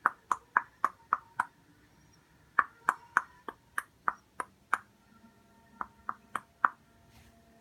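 A run of sharp clicks, each with a short ringing pitch, about three a second, in three groups separated by pauses of about a second.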